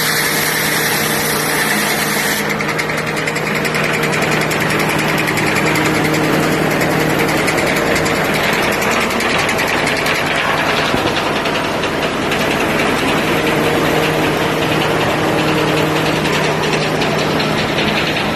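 International UD-14 diesel power unit of a Corley sawmill running steadily with a rapid, even beat. A high hiss drops away about two seconds in.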